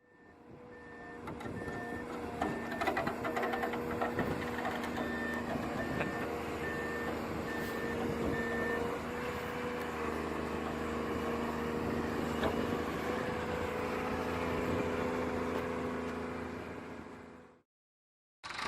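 A heavy vehicle's reversing alarm beeping at a steady pace, about one beep a second, over the steady hum of machinery running. The beeping stops about halfway through while the machine noise carries on, then fades out near the end.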